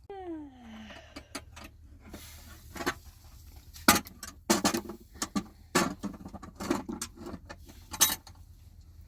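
A short animal call that falls in pitch, then a run of sharp knocks and clatters, like objects or utensils being handled.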